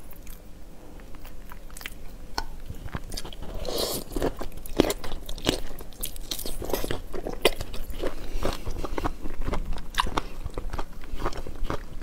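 Close-miked eating of large prawns in chili sauce: shells cracked and peeled by hand, then biting and wet chewing, a run of quick clicks and crunches that grows busier about four seconds in.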